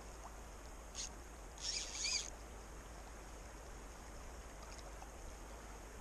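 Creek water running as a steady rush, with two brief high-pitched buzzes about one and two seconds in.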